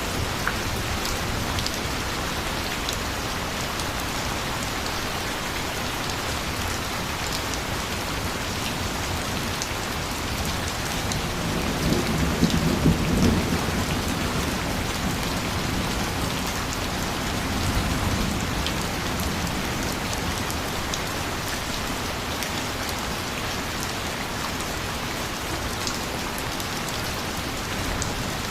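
Steady rain falling with an even hiss. About twelve seconds in a low rumble of thunder swells for a few seconds, and a smaller rumble follows a few seconds later.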